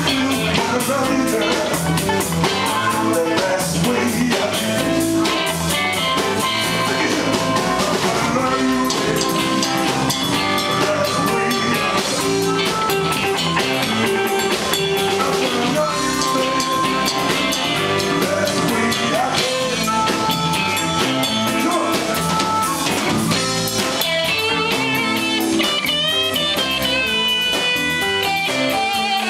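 Live band playing: an amplified harmonica, held to a cupped microphone, carries held and bent notes over electric guitars, electric bass and drum kit. Near the end an electric guitar comes forward with wavering bent notes.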